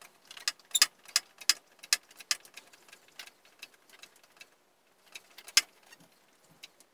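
Foot-pumped hydraulic scissor jack being pumped as it lifts its load, its pedal and linkage giving a run of sharp, irregular metallic clicks, the loudest about five and a half seconds in.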